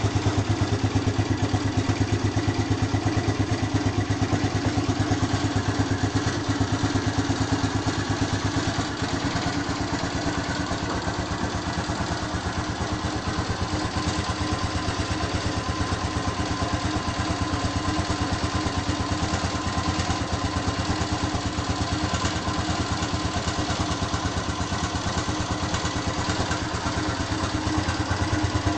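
Honda Phantom motorcycle engine idling steadily while warming up, a fast even pulsing that dips slightly in loudness partway through and picks up again near the end.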